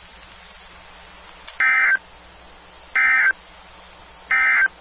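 Emergency Alert System end-of-message data tones: three short, harsh digital data bursts about 1.3 seconds apart, each lasting about a third of a second, over faint radio hiss. The three bursts signal the end of the alert message.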